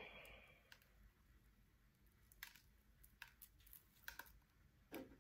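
Near silence, with a few faint, scattered clicks as fingers pull apart butterwort rosettes over a tray.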